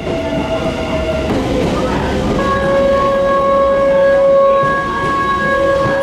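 Kintetsu limited express train pulling in alongside the platform, running with a rumble. From about two seconds in, a steady high-pitched squeal is held for several seconds as the train slows.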